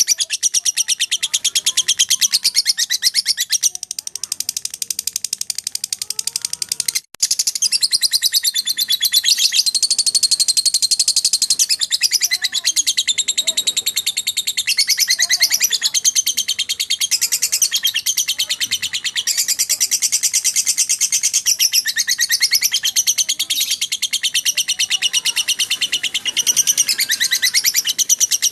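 Lovebird doing 'ngekek konslet': a long, unbroken, very fast high-pitched chattering trill with no pauses. There is a momentary break about seven seconds in.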